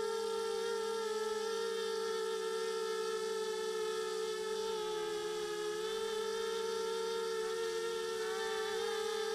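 The four small brushless motors and propellers of a 250-size FPV quadcopter (RCX 1804-2400KV motors) whining steadily, picked up close by the camera on the quad. The pitch dips briefly about five seconds in and again near the end as the motors slow, then comes back up.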